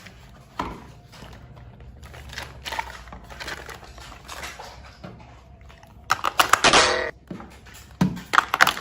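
Hard plastic toy parts and packaging being handled: faint rustling and small clicks, then a loud burst of rapid rattling and clattering about six seconds in and a shorter one near the end.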